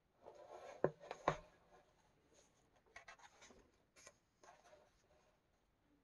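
Paper pages of a coloring book being turned by hand: a short rustle with two sharp snaps of the page about a second in, then lighter rustling and tapping as the new page is smoothed flat.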